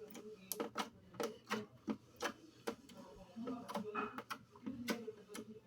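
Slime being squeezed and poked by hand, giving irregular sticky clicks and pops, several a second.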